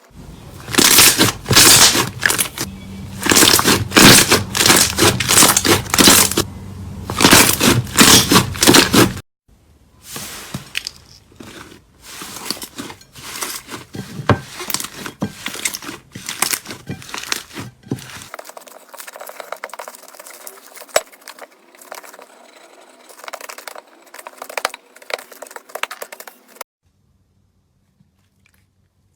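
Slime squeezed and pressed by hand, giving dense crackling and popping. It comes in loud surges about once a second at first, then turns to quieter, finer crackling after a couple of abrupt cuts, and stops near the end.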